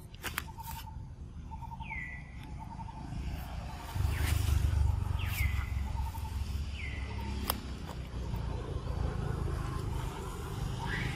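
Outdoor ambience with birds calling: short calls that drop sharply in pitch, repeating every second or two over soft, rapidly pulsed notes. A low rumble grows louder about four seconds in, and a few sharp clicks stand out.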